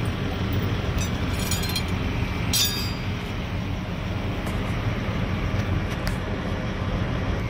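Steady low rumble of a large diesel engine idling, with light metallic clinks about a second in and again about two and a half seconds in as metal parts are handled.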